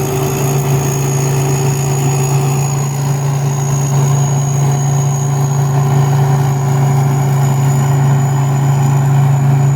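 Turbocharged diesel engine of a Thai Seng rice combine harvester running steadily under load. A thin, high turbo whistle rides steadily over the low engine drone.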